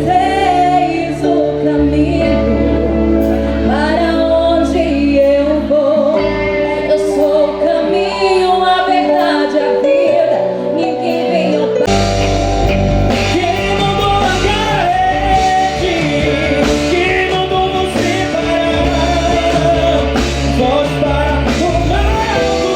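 Live gospel band music with a singer over the band. About halfway through it cuts abruptly to a different passage of the performance.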